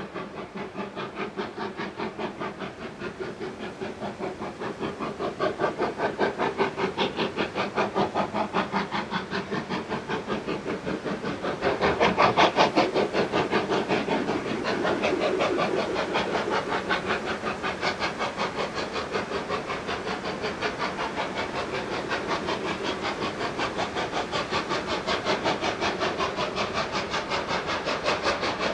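NER Q6 0-8-0 steam locomotive working hard as it approaches with a train, its exhaust beating in quick, even chuffs. The chuffs are loudest about twelve seconds in.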